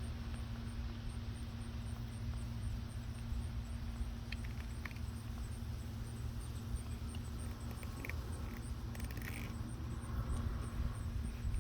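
A few faint, brief metallic clinks and a scrape as wheel-bearing and hub parts and tools are handled, over a steady low hum.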